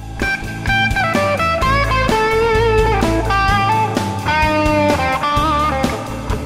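Reverend Charger 290 electric guitar with P-90 pickups, played through a Fender Tone Master Deluxe Reverb amp: a blues lead line with bent notes and vibrato. It plays over a backing track with a steady bass line and an even drum beat.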